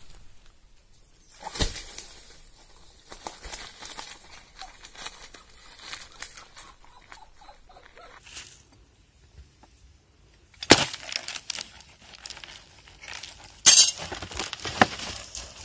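Dry leaf litter crackling and rustling under feet and hands while a whole raw jackfruit is handled on the ground. There are a few sharp knocks: one a couple of seconds in and two louder ones in the last third.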